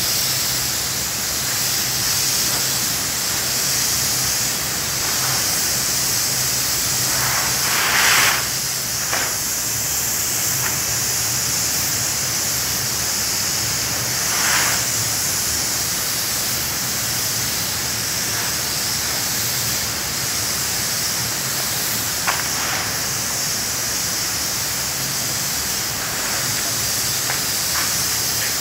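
Phoenix gelcoat spray gun hissing steadily as it sprays gelcoat, over a steady low hum. The spray swells briefly louder twice, about 8 and 14 seconds in.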